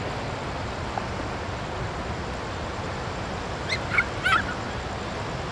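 Steady rush of fast-flowing spillway tailwater, with a few short bird calls about four seconds in.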